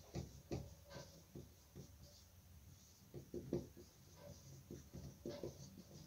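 Marker pen writing on a whiteboard: a faint run of short, irregular strokes and taps, loudest about three and a half seconds in.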